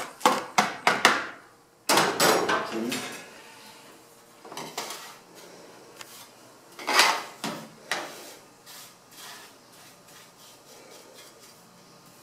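A metal hook scraping and clattering against the sooty underside of a wood-burning cookstove's oven and a plastic dustpan as soot is raked out: a quick run of sharp clicks at first, a stretch of scraping about two seconds in, and a few separate knocks, the loudest about seven seconds in. Toward the end only faint brushing and scratching remain.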